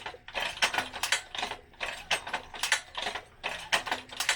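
Quick, irregular series of small metallic clicks and clatter, a few a second, from hand work on a Hornady 366 shotshell reloading press.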